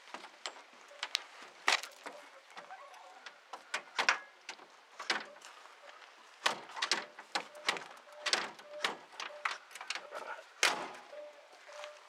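Metal cab door of a 1958 Kenworth truck being opened and handled as someone climbs out: a string of latch clicks and metal knocks, the loudest about a second and a half in, at about four seconds and near eleven seconds.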